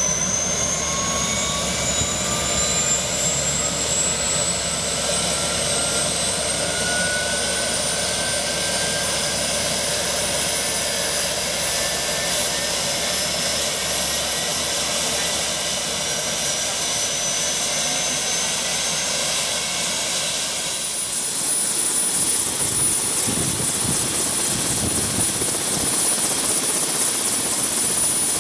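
Light turbine helicopter running up on the ground: its turbine whine climbs steadily for about twenty seconds, then levels off into a steady high whine as a low rotor thump sets in. This is the engine warming up and coming to speed before takeoff.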